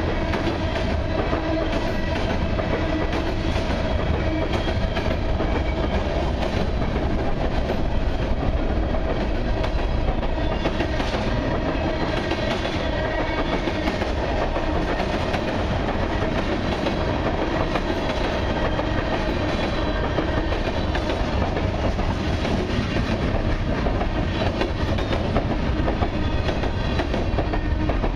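Freight cars of a long mixed train rolling steadily past, steel wheels clicking over the rail joints with a continuous low rumble.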